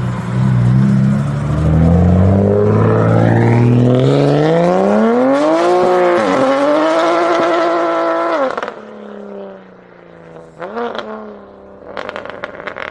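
Pagani V12 supercar engine accelerating hard. Its pitch climbs for about six seconds, dips briefly, then holds high before the throttle cuts sharply. After a short rev blip, the exhaust crackles rapidly near the end.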